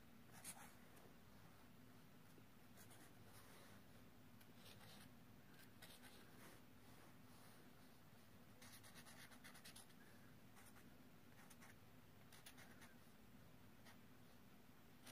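Felt-tip marker scratching faintly on a paper card in short, scattered strokes as small squiggles are drawn, a few quick strokes at a time with short pauses between.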